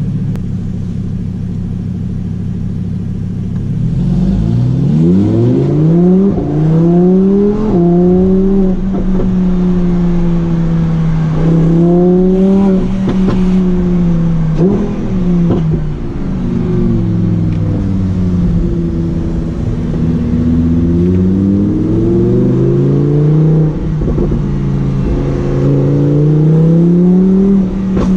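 Lamborghini Huracán Performante's 5.2-litre V10 idling, then rising in pitch about four seconds in and running at a higher, wavering pitch that dips and climbs again several times. A few sharp pops from the exhaust come through along the way.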